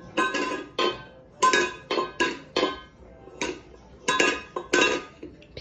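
Small metal bowl clanking on a hard floor as a cat paws at it: about a dozen quick strikes in irregular bursts, each ringing briefly with the same metallic tone.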